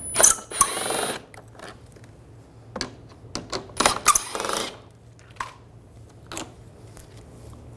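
Cordless power driver with an 8 mm socket running in two short bursts, about a second at the start and half a second about four seconds in, backing out the screws that hold a plastic grille. Light clicks of plastic and metal being handled in between.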